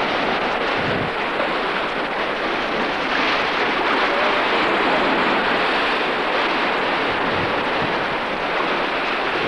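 Surf breaking on a beach with wind buffeting the microphone: a steady rushing noise.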